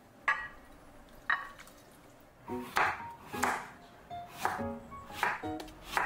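Two sharp knife strokes on a cutting board, about a second apart. About two seconds in, light background music with plucked notes and a steady beat begins.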